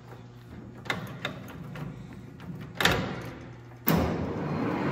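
Metal clicks and a sharp clunk as the lathe's control lever is worked, then a loud clunk about four seconds in as the gearhead spindle of a Daewoo-Ikegai tool room lathe engages and runs steadily.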